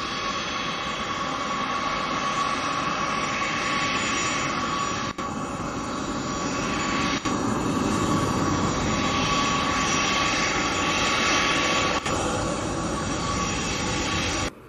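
Boeing 737-800's CFM56-7B turbofan engines running on the runway: a steady jet rush with a thin, high fan whine, swelling a little toward the middle. The sound cuts off suddenly near the end.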